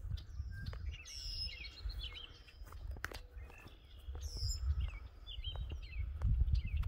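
Several songbirds calling and singing, short chirps and warbling phrases overlapping throughout, over a low, uneven rumble.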